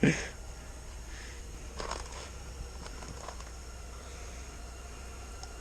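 Steady low hum with faint rustling and crinkling, a short sound at the very start and a slightly louder rustle about two seconds in.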